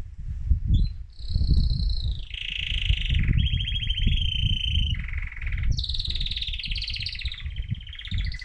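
Male mosaic canary singing excitedly: a string of rapid trills, each a fast repeat of one note, switching to a new trill every second or so. An uneven low rumble runs underneath.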